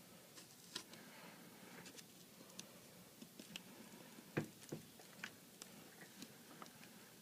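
Faint, irregular ticks and light scrapes of a razor blade working old adhesive off the iPad 3's frame, with one sharper tap a little over four seconds in.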